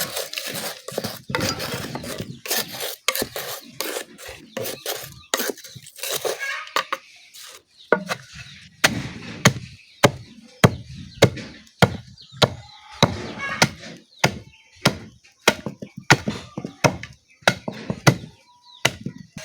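Pestle pounding charcoal in a mortar: repeated hard strikes, irregular at first, then settling into a steady beat of about two a second.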